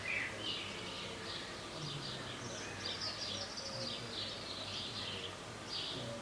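Small birds chirping and singing in quick repeated phrases, over a faint steady low hum.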